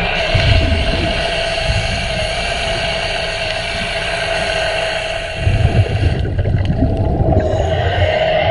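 Remora Solo underwater rotary hull-cleaning brush running, its motor a steady whine over churning water and a low scrubbing rumble against the boat's hull. About five and a half seconds in the rumble grows louder and the whine fades for a moment before returning.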